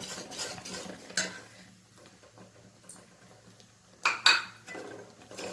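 A utensil stirring and scraping in a pan as gram flour is mixed quickly into hot sugar syrup, with two loud sharp clinks against the pan about four seconds in.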